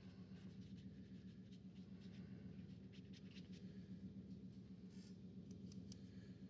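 Near silence: a steady low room hum, with faint scratchy ticks of a watercolour brush working on wet paper and in a plastic paint tray, in small clusters about halfway through and near the end.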